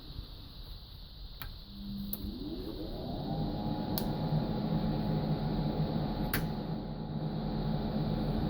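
An electric motor spinning up about two seconds in, rising in pitch, then running with a steady hum, with a few sharp clicks over it.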